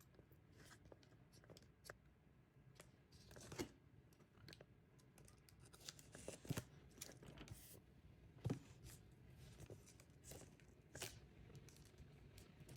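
A mail parcel being opened by hand: faint, scattered rustles, tears and clicks of packaging, with a few louder crackles spread through.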